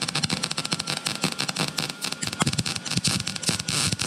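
MIG welding arc on thin sheet steel, crackling and popping irregularly because the wire speed is set too fast for the heat setting. Near the end it evens out into a steadier sizzle as the wire speed is turned down.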